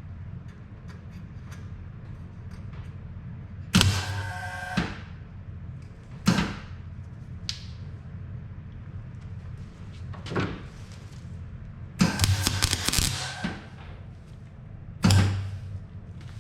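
Metal parts knocked and set down, about six sharp clanks, some with a short ringing tail, over a steady low hum.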